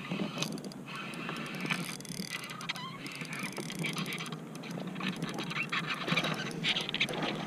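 Irregular mechanical clicking and rattling from fishing tackle and a pedal-drive kayak's fittings, with many small ticks.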